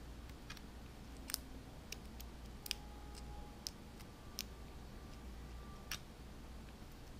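Number wheels of a Master Lock M175 combination padlock clicking as they are turned one position at a time, a handful of light, separate clicks, while a thin aluminium shim cut from a pop can is pressed in to feel for the groove that marks the right digit.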